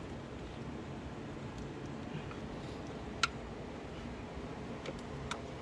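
A few light, sharp clicks and ticks of parts being handled under the hood, the loudest about three seconds in, over a steady low background noise.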